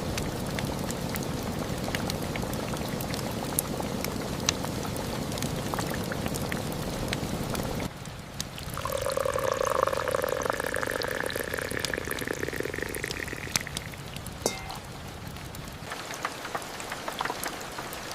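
Steady rain with scattered drips, which cuts off about eight seconds in. It gives way to liquid being poured into a vessel, a ringing pour that lasts about four seconds.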